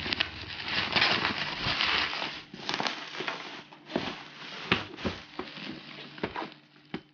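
Plastic packaging and bubble wrap crinkling and rustling as a parcel is unwrapped by hand: a dense crinkle for the first couple of seconds, then scattered crackles and clicks.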